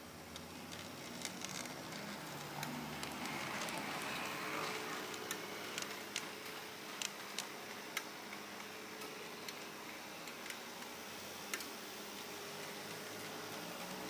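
HO-scale model Peter Witt tram running on its layout track: a steady motor whir with irregular sharp clicks from the wheels on the track.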